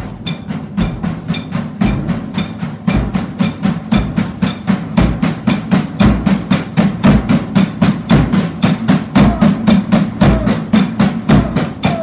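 A Mendini by Cecilio acoustic drum kit played in a steady beat: a bass drum thump about once a second with quicker drum and cymbal strokes between. The playing gets louder about three seconds in.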